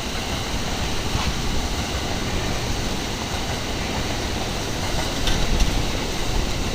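A train running past with a steady, even rushing noise, heaviest in the low range.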